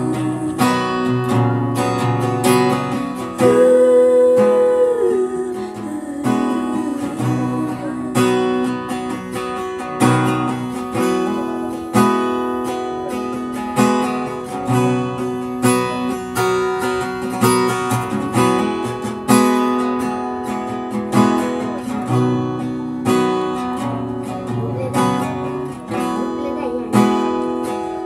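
Background music: acoustic guitar strummed in a steady rhythm, with one long held note about four seconds in.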